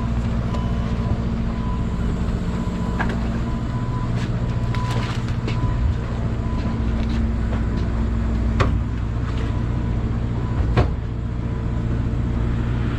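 Crab boat's engine running with a steady low drone, with a few sharp knocks on deck, the loudest two about two seconds apart near the end.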